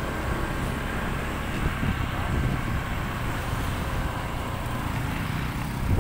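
Steady low rumble of a moving motorcycle: engine and road noise.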